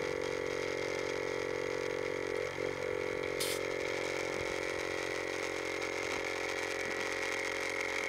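Jeep-mounted onboard air compressor running steadily, pumping air through a coiled hose to inflate a tyre, with a short hiss of air about three and a half seconds in.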